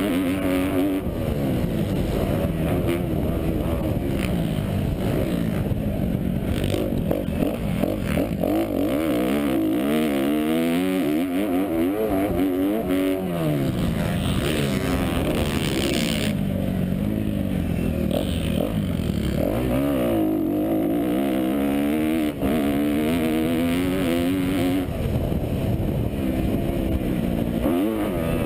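A 2012 Kawasaki KX250F's single-cylinder four-stroke engine revving hard, its pitch climbing and dropping again and again as the rider shifts and rolls off around a motocross track, heard from a helmet-mounted camera.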